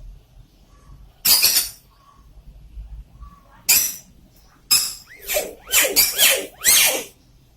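A bird giving short, harsh, cough-like calls, one about a second in and another near four seconds, then a quick chattering run of five or so calls with rising and falling pitch between about five and seven seconds.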